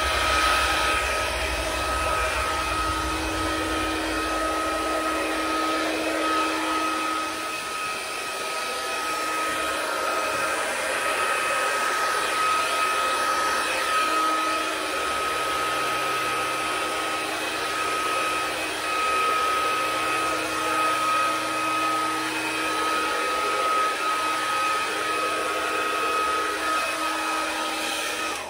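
Hand-held hair dryer blowing steadily with a constant whine, used to push wet acrylic paint across a canvas; it cuts off at the very end.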